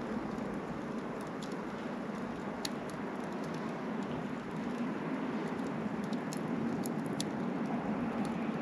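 Small wood fire crackling: a steady low hiss with scattered sharp pops and snaps.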